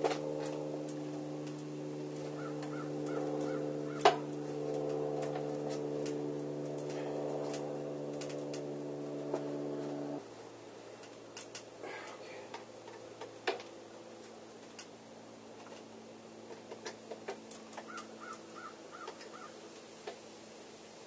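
A crow cawing, four caws in quick succession about two and a half seconds in and again near the end, over a steady hum that drops in pitch and gets quieter about halfway through. Scattered light clicks and knocks of parts being handled, with a sharper knock about four seconds in.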